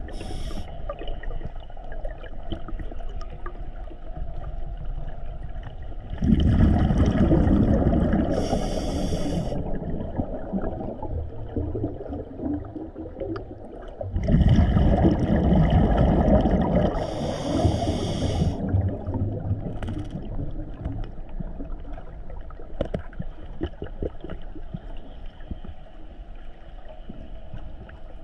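Scuba diver breathing through a regulator underwater: two breaths, about six and fourteen seconds in, each a loud rush of bubbles with a brief higher hiss near its end, over a steady low underwater rumble.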